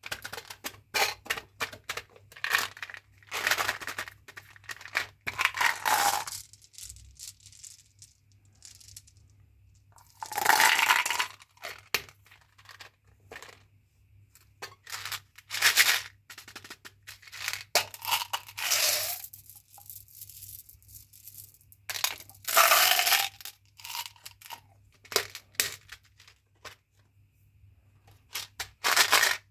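Candy and gum packaging handled and torn open by hand: bursts of wrapper crinkling and tearing with many small clicks and taps, over a faint steady low hum.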